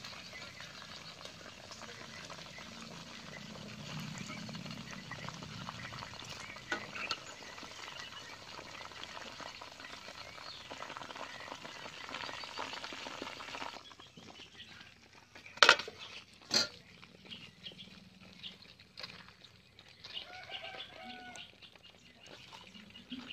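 Chicken leg pieces deep-frying in hot oil in a kadai, a steady sizzle while they are stirred and lifted out with a wire strainer. About two-thirds through, the sizzling cuts off sharply; then come two sharp knocks a second apart and a few faint bird chirps.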